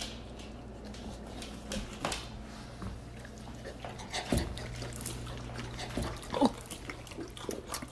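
A young Rottweiler making a few short, soft noises as it noses a lemon wedge, over a low steady hum.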